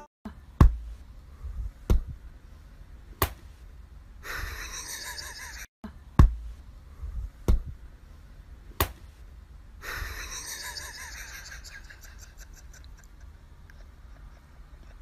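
Six sharp knocks or taps, evenly spaced about 1.3 seconds apart, with two spells of soft breathy hiss between and after them.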